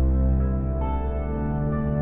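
Slow ambient background music of long held chords, moving to a new chord just under a second in.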